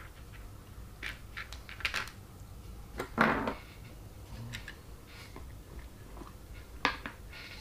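Light clicks and rustles of small plastic RC-kit parts and a screwdriver being handled on a workbench, scattered through, with the loudest rustle about three seconds in.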